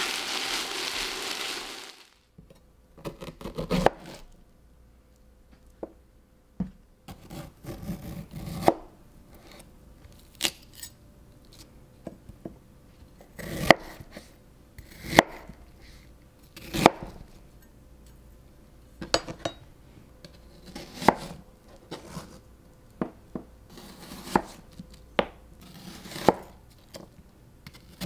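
Bulgogi beef and vegetables sizzling in a frying pan, cut off after about two seconds. Then a chef's knife chops on a cutting board, slicing through Asian pear and onion in slow, separate strokes a second or two apart.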